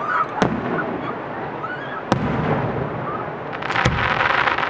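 Aerial fireworks shells bursting: sharp bangs about half a second in and about two seconds in, then another bang near the end followed by rapid crackling.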